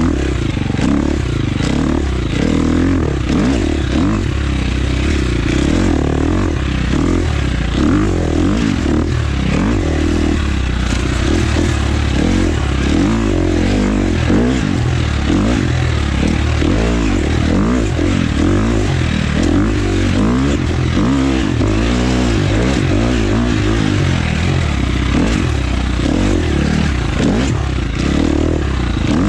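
Husqvarna FX 350 four-stroke single-cylinder dirt bike engine revving up and down constantly as it is ridden hard through sand whoops.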